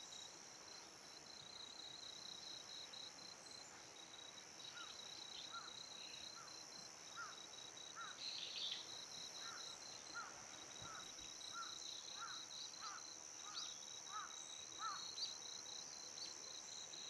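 Faint, steady chorus of insects with a fast pulsing trill. From about five seconds in, a string of short rising chirps comes a little under two a second for about ten seconds.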